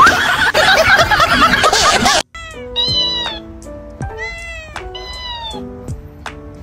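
A loud, dense jumble of sound cuts off abruptly about two seconds in. Then a dancing cactus toy plays its electronic tune: steady low melody notes with high, arching, meow-like vocal phrases repeated over them.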